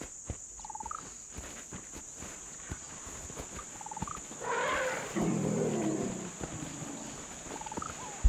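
Wildlife ambience on dry savanna: a steady high insect drone, scattered soft footfalls in sand and a short two-note bird chirp every few seconds. About halfway through, a large animal gives a loud, rough call lasting about two seconds, sliding down from a higher cry into a low growl.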